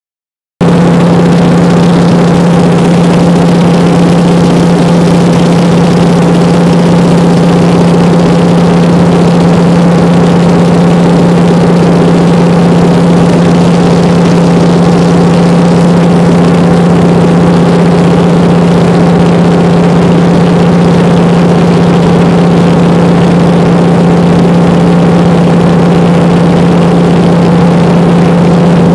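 de Havilland Beaver floatplane's engine and propeller droning steadily in cruise, heard loud from inside the cabin, with a strong low hum running under it.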